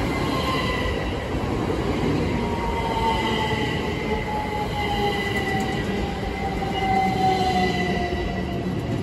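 Great Northern Class 387 Electrostar electric multiple unit running past along the platform, with wheel-on-rail rumble. Over the rumble its traction motors whine in a tone that slowly falls in pitch, with a steadier higher whine above it.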